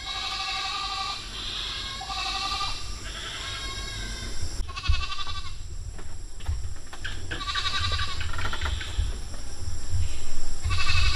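Goats bleating, six separate wavering calls of under a second each, over a low rumble.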